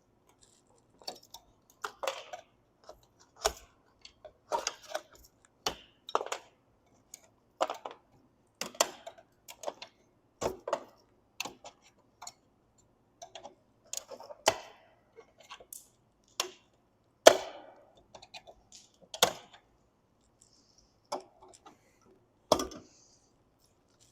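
Irregular sharp clicks and knocks of hand work on a camper roof: tools and loose parts being handled while the old TV antenna is taken off. There are a couple of dozen separate strikes, a few much louder than the rest, around 17 seconds in.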